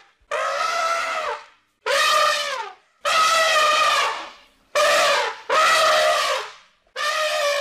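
Elephant trumpeting: about six loud, brassy blasts in quick succession, each lasting roughly a second and separated by short breaks.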